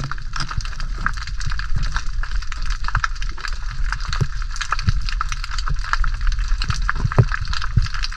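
Dense, steady crackling and clicking over a low rumble, as recorded underwater by a dive camera.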